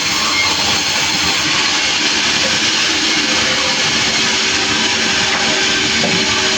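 Sawmill running with a loud, steady noise, the saw working through timber.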